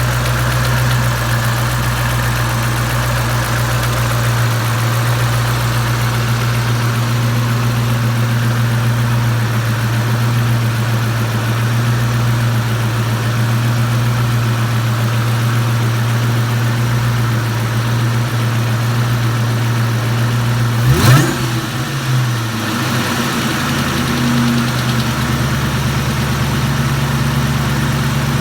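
Supercharged Mustang engine idling warm with a tick in it, blipped once about three quarters of the way through, revving up sharply and dropping straight back to idle. The ticking comes only warm at idle or returning to idle, and began after the alternator quit on a high-speed run; oil pressure is good, and new lash adjusters, lifters and roller rockers have not cured it.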